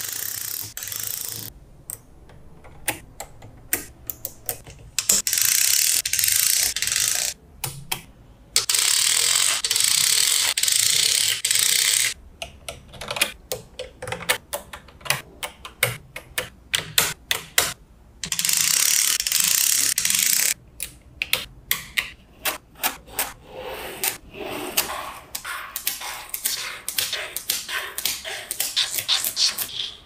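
Small magnetic balls clicking and rattling against each other as strands of them are laid and snapped onto a structure built of the balls. Sharp separate clicks alternate with three stretches of dense, continuous rattling lasting two to three seconds each.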